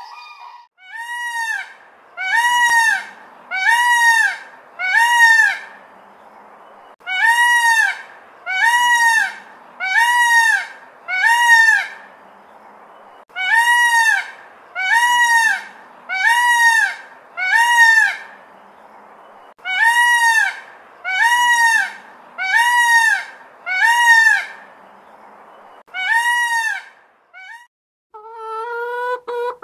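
Peacock calling: loud, arching honks repeated about once a second in runs of four or so, with short pauses between the runs.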